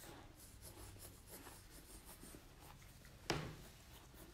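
Faint scratching of a graphite pencil drawing curved lines on paper, with one sharp click a little over three seconds in.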